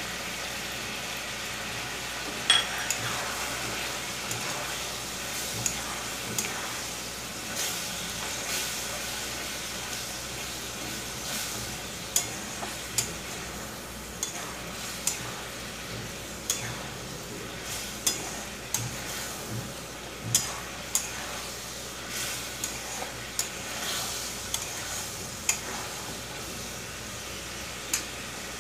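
Long steel spatula stirring thick tomato chutney with jaggery in a steel kadai over a gas flame. A steady sizzle runs under frequent, irregular sharp clinks of the spatula against the pan.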